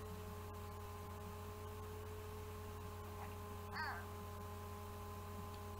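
An infant's single short coo about four seconds in, over a steady electrical hum.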